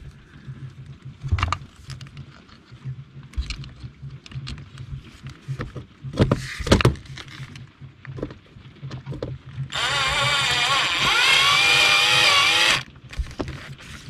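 Scattered clicks and knocks of handling, then about ten seconds in a cordless drill runs for about three seconds, its pitch wavering slightly under load as it drives a screw to fasten a ground wire's ring terminal, and stops abruptly.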